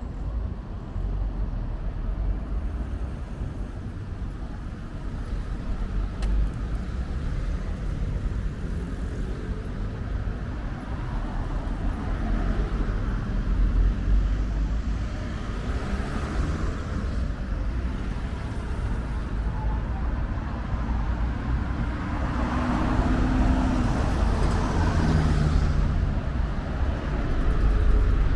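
Street traffic: a steady low rumble of road vehicles, with cars going past, louder about halfway through and again near the end.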